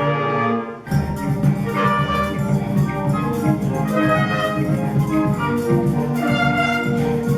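A concert band playing wind and brass instruments with percussion. Just after the start it thins to a few low notes for a moment, then the full band comes back in.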